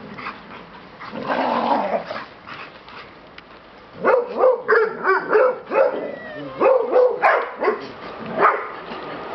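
Several dogs barking and whining in greeting, with a quick run of about a dozen short, pitched yips and whines from about four seconds in.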